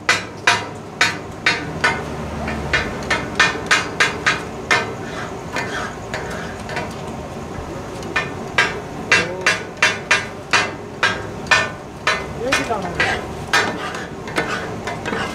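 Two flat steel spatulas chopping goat offal mince on a large iron griddle (tawa): a rhythmic metallic clatter of about two to three strikes a second, the taka-tak that gives the dish its name. The chopping stops for a couple of seconds midway, then resumes, growing busier near the end.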